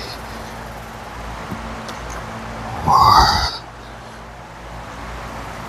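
A man's short, straining grunt about three seconds in, the effort of a rep during a leg workout, over a steady low background hum.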